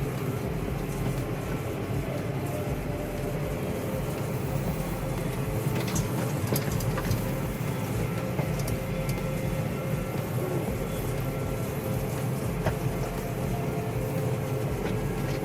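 Tractor engine running steadily while baling hay, a low even drone with a few sharp clicks and rattles over it.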